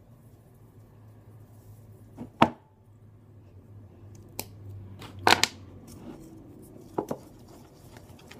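Slime-making supplies being handled: a few sharp knocks and clicks of plastic containers against a hard surface, the loudest about two and a half seconds in and a quick double knock about five seconds in.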